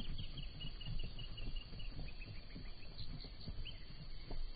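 Plains zebras' hooves thudding and scuffing irregularly on dry ground as two zebras spar. A bird calls a fast run of high repeated notes, falling slightly in pitch, over the first half, and a few more notes follow a little later.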